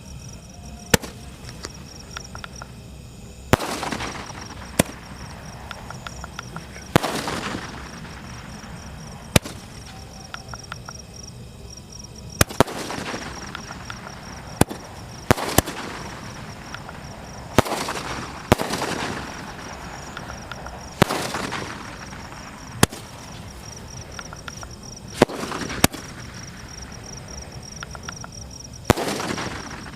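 Ajanta 12-shot aerial firework cake firing its shots one after another, each a sharp bang, many followed by a fading hiss, spaced every one to three seconds. Crickets chirp steadily underneath.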